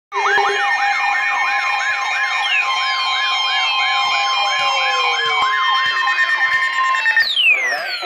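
Several weather alert radios sound their alarms together for a Flash Flood Warning. A rising siren whoop repeats about twice a second over a steady tone near 1 kHz, the weather-radio warning alarm tone, and slow falling electronic sweeps. Most of the tones cut off a little before the end.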